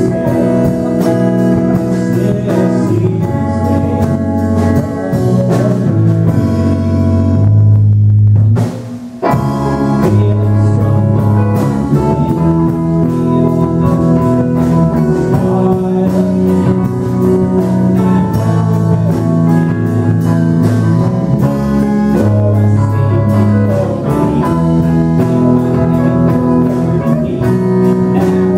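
Amateur rock band playing live on electric guitars and bass, with a singer. The band cuts out for a moment about eight seconds in and crashes back in a second later.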